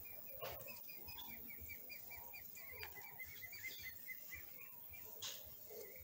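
Small bird giving a fast run of short, high chirps, about five a second, that stops about four and a half seconds in. Fainter, lower curling notes and a few sharp clicks are mixed in.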